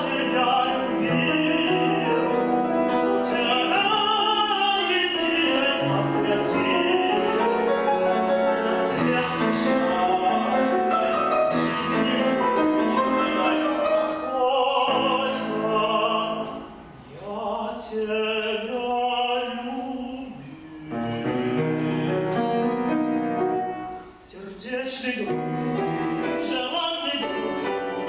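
A tenor singing classical art song or opera with vibrato, accompanied by piano. The voice breaks off briefly between phrases three times in the second half.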